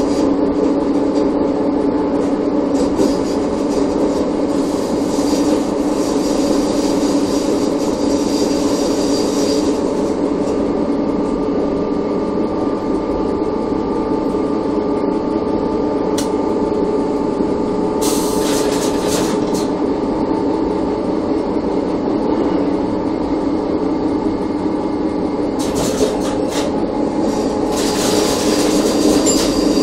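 Chemins de fer du Jura ABe 4/4 electric railcar heard from its driving cab while running along the line: a steady hum with several held tones, with the wheels rolling on the rails. Brief high hissing comes in about two-thirds of the way through and again near the end.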